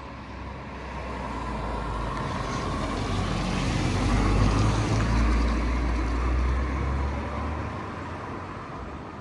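A car's engine and road noise swelling to a peak about halfway through, then fading away, like a vehicle going past.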